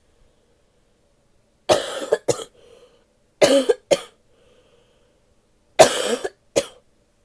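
A sick woman coughing: three bouts of two coughs each, roughly two seconds apart.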